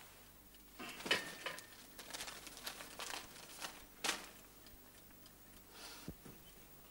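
Short bursts of paper rustling and crinkling as a wad of banknotes and a savings book are handled and the notes fanned out.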